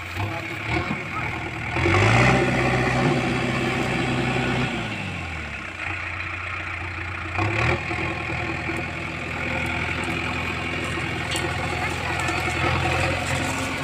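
Backhoe loader's diesel engine running, revving up about two seconds in, dropping back to idle around five seconds, then revving up again near eight seconds and holding.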